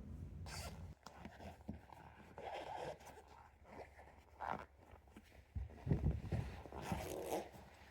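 Close handling noises: a few short raspy strokes and rustles, with soft knocks about six seconds in. A low hum stops about a second in.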